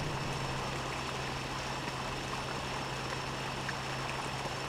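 Steady low machine hum over a constant wash of churning water from a foaming basin at a wastewater treatment plant.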